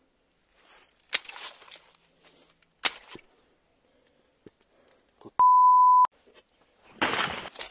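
Two sharp knocks about a second and a half apart, then a steady, high-pitched censor beep lasting under a second, the loudest sound.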